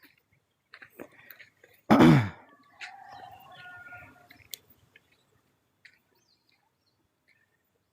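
A bird calling: one loud, short squawk falling in pitch about two seconds in, followed by a quieter, longer call with a steady pitch.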